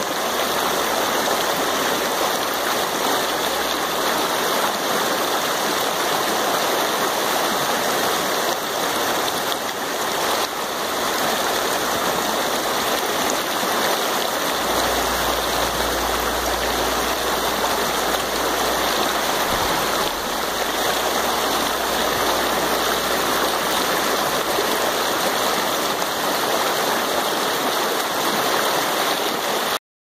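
Fast, shallow mountain creek rushing over rocks: a steady, unbroken rush of water.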